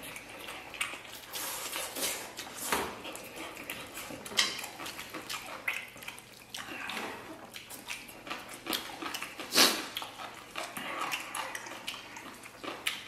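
Close-up eating sounds: noodles slurped and food chewed, with chopsticks clicking against porcelain bowls in a string of short clicks and slurps.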